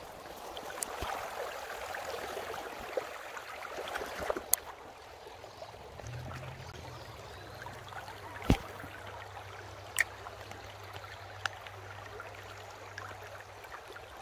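Shallow creek running over a riffle: a steady rush and babble of flowing water. A few sharp clicks cut through it, the loudest about halfway through.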